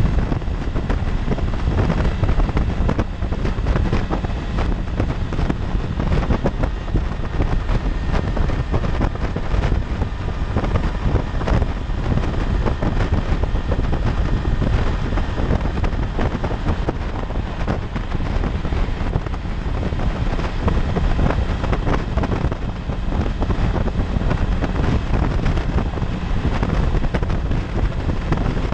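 Steady wind noise on the microphone at freeway speed, with the 2016 Honda CB500X's parallel-twin engine running underneath it.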